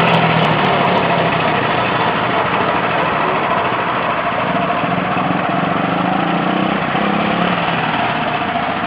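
Go-kart's small 5.5-horsepower single-cylinder engine running steadily under throttle, fading slowly as the kart drives away.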